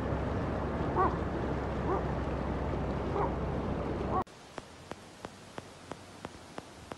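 Muddy floodwater rushing over a road and field as a steady loud noise, with a few faint short animal calls. About four seconds in it cuts off suddenly to a quiet hiss with regular clicks, about three a second.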